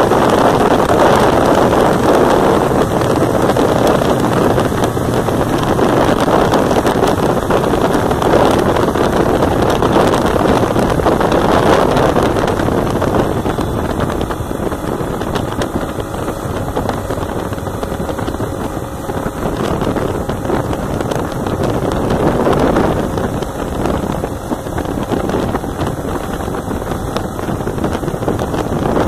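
Wind rushing and buffeting over the microphone of a Yamaha Ténéré 250 motorcycle riding at road speed, with the bike's running noise mixed in. It is a steady, dense rush that eases a little about halfway through.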